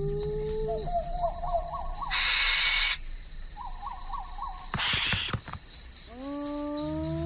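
Crickets chirring steadily in a high, pulsing trill. A low call rising in pitch is heard at the start and again near the end, a short warbling trill comes twice, and a brief burst of hiss comes about two seconds in.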